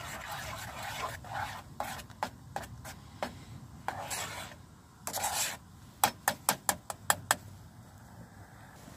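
A metal fork stirring and scraping round the inside of a metal camping pot of watery stew, then a quick run of about seven sharp taps a little past the middle.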